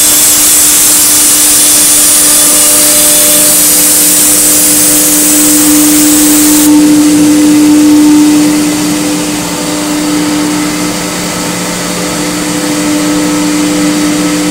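Multicam MG205 CNC router running, its 15 HP spindle giving a loud, steady whine over a rushing hiss. The hiss cuts off abruptly about seven seconds in, and the overall sound eases a little soon after while the whine carries on.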